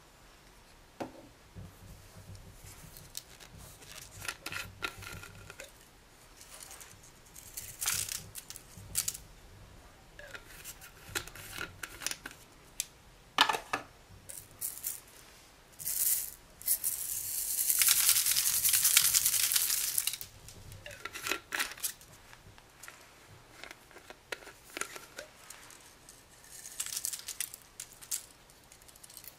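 Hands handling small plastic cups and tubes and sprinkling glitter, sequins and confetti onto slime: scattered plastic clicks, rattles and rustles, with a steady hiss of pouring or shaking for about three seconds past the middle.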